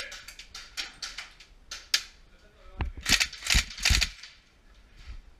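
Airsoft gunfire from a Tokyo Marui M4 Recoil Shock electric blowback rifle: scattered sharp cracks over the first two seconds, then three short full-auto bursts in quick succession about three to four seconds in.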